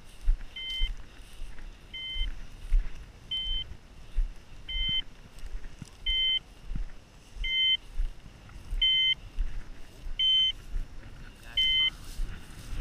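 A bird dog's beeper collar beeping at an even pace, one short two-tone beep about every second and a half, over the thud of footsteps through dry grass.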